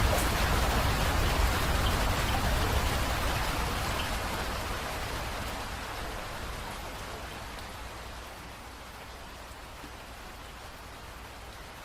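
Rain falling steadily. It eases off over the first eight seconds or so, then holds at a lower, gentler level.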